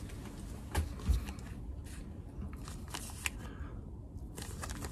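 Small clear plastic bags holding pin badges rustling and crinkling as they are handled, with a few light clicks.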